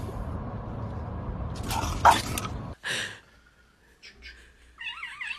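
Steady road noise inside a moving car's cabin, broken by a sharp loud sound about two seconds in. It cuts off abruptly, and near the end a high, wavering voice is heard.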